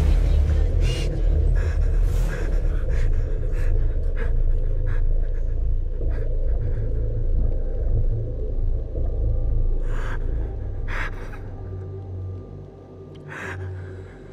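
A deep, low rumbling drone that dies away near the end, with a person's short gasping breaths heard several times over it.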